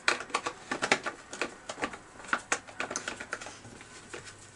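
Quick, irregular clicks and taps of a hand tool on the screws of a chainsaw's plastic top cover as it is screwed down.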